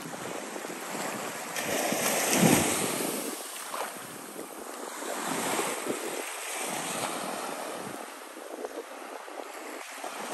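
Small surf washing up onto a sandy beach in repeated swells that rise and fade, the loudest about two and a half seconds in, with wind buffeting the microphone.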